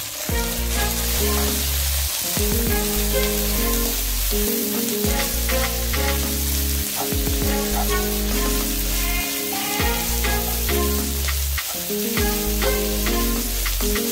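Shredded cabbage sizzling in a hot wok while a plastic spatula stirs it and scrapes against the pan, over background music.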